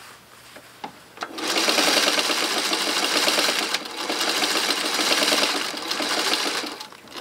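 Singer 301 sewing machine stitching through a folded denim jeans hem. It starts about a second in after a few light clicks, runs steadily with a brief easing off about midway, and slows to a stop near the end.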